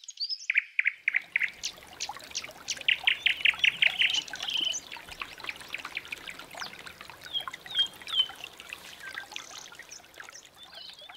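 Woodland birds singing and chirping, with a quick run of repeated notes a few seconds in, over the steady trickle of a small brook.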